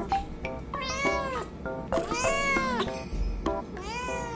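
Long-haired orange cat meowing excitedly three times, each meow rising and then falling in pitch.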